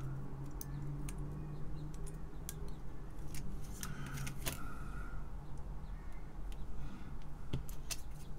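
Scattered light clicks and taps of small electronic parts being handled: an IC and metal pin header strips set against a wire-wrap prototyping board. A low steady hum runs under them.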